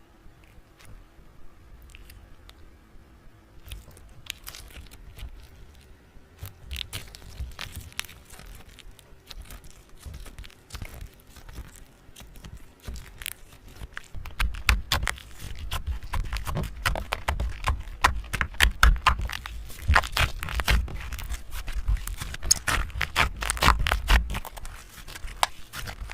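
Close crackling and scraping: a run of sharp clicks and crunches, sparse at first, growing busier and louder from about halfway, with a low rumble underneath.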